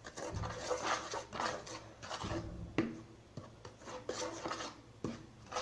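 A spoon stirring and scraping a flour, salt and dish-detergent dough in a plastic bowl: irregular rubbing with a couple of sharp knocks against the bowl.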